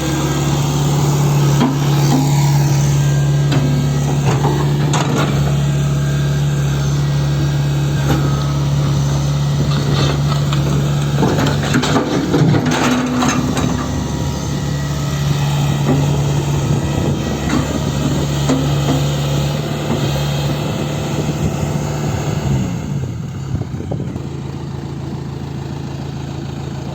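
Tata Hitachi Zaxis 120 excavator's diesel engine running steadily, with several sharp knocks as the track chain is worked. About three-quarters of the way through, the engine note falls and settles to a quieter, lower run.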